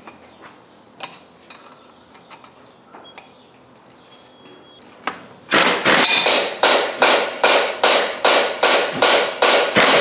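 Pneumatic impact wrench hammering as it tightens the bolts of a hay baler's slip clutch, in quick repeated bursts about three a second that start about five and a half seconds in. Before that, a few light clinks of metal parts being handled.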